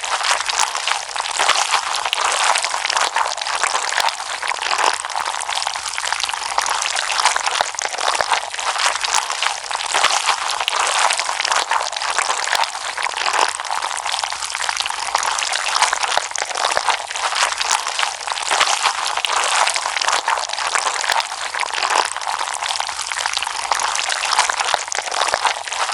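Slime being squished and worked by hand, a continuous dense run of small wet clicks and pops.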